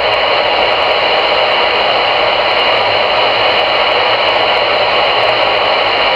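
CRE 8900 CB radio receiver on channel 22 putting out a loud, steady static hiss through its speaker, with no voice in it.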